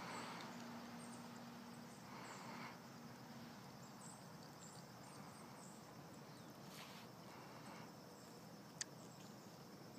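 Near silence: faint outdoor ambience with a few soft rustles and one sharp click near the end.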